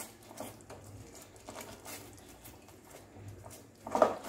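Light, scattered taps and scrapes of a cooking spoon against a kadai holding the finished gravy, with a few louder knocks near the end.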